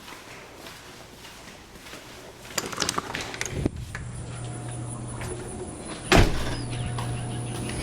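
A door being opened: latch clicks and a sliding scrape about three seconds in, then a loud single thud about six seconds in as it shuts. After the thud a steady low hum and a steady high whine of insects carry on.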